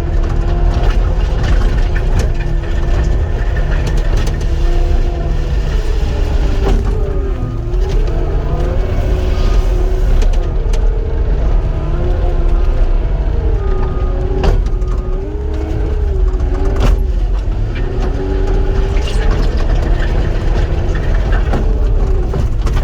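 Cat 259 skid steer's diesel engine running hard under load. Its pitch dips and recovers again and again as the hydraulics take load, with a few sharp knocks along the way.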